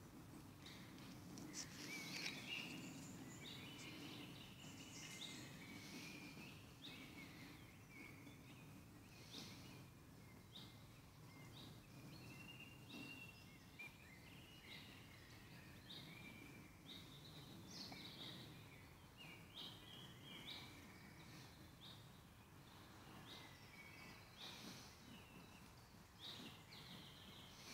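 Faint woodland birdsong: several birds chirping and trilling in short, repeated phrases over a low, steady background rumble.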